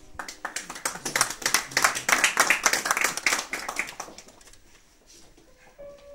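A small audience applauding, the clapping building up and then dying away after about four seconds. Soft background music comes in near the end.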